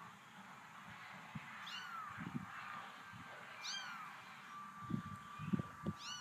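Kittens mewing: three high, falling mews about two seconds apart, with soft rustling thumps near the end.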